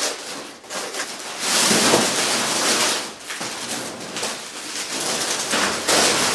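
Clear plastic film being pulled and crumpled off a rolled mattress: loud crinkling and rustling, strongest from about one and a half to three seconds in and again near the end.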